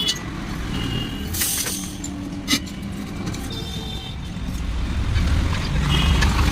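A motor vehicle's engine running, its low rumble growing louder in the second half, with a short hiss about a second and a half in and a sharp click a second later.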